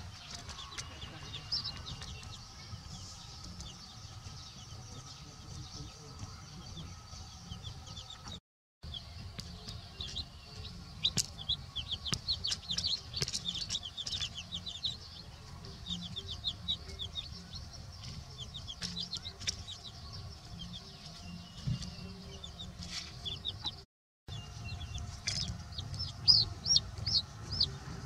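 Young chicks peeping in quick runs of short, high chirps, over a low steady rumble. The sound cuts out completely twice for a moment.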